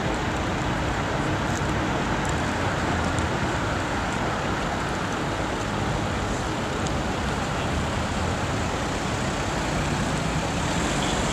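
Road traffic noise as police escort vehicles drive past: a steady rush of engines and tyres on the street, growing a little louder near the end.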